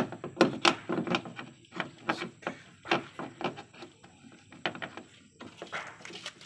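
Irregular clicks and knocks of plastic and metal parts as a Geely Panda's outside door handle is worked into its front door recess.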